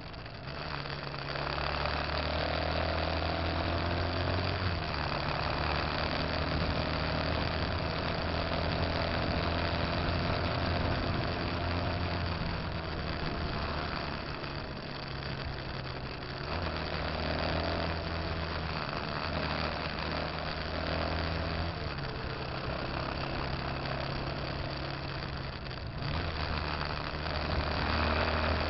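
Motorcycle engine running on the move, with wind and road noise over it. The engine note shifts to a new pitch several times, as with gear changes.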